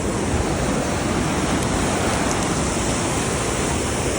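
Steady rushing of water pouring over a dam, an even noise with no break or change.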